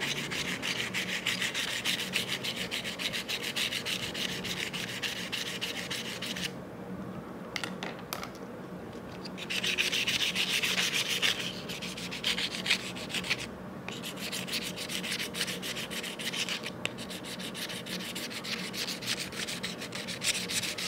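Steel kitchen knife blade rubbed rapidly back and forth on sandpaper wrapped over a ruler, a dense gritty scraping: the dull knife is being sharpened on both sides. The strokes stop for a few seconds about a third of the way in and briefly again past the middle.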